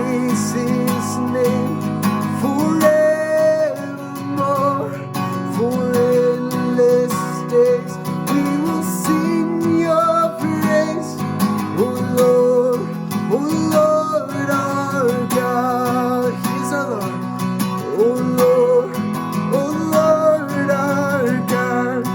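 Worship music: strummed acoustic guitar with a held, slightly wavering melody line over it, closing out a hymn.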